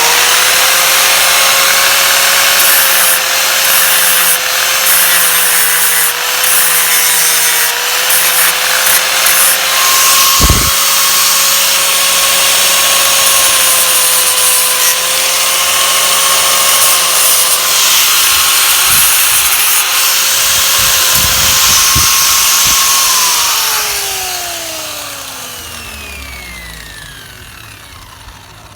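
Angle grinder running against the door's sheet metal, grinding it clean to bare metal for the welder's ground clamp: a steady whine over a gritty grinding noise, with one short knock about ten seconds in. Near the end it is switched off and winds down with a falling whine.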